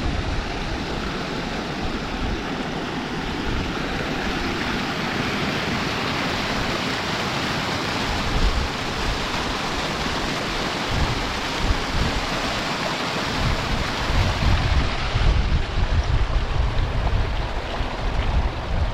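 Strong moorland wind buffeting the microphone in deep, uneven gusts, heaviest near the end, over a steady rushing hiss.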